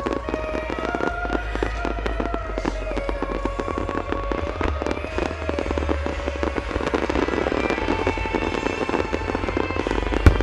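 Large aerial fireworks display: a steady run of launch thumps and cracking bursts, with a loud shell bang near the end, over music with a slow, held melody.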